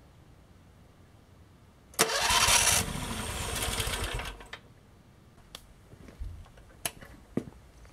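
Electric starter cranking a 614 cc V-twin petrol engine for about two seconds: a loud burst as it engages, then a steadier, quieter cranking that stops without the engine running on. A few light clicks follow.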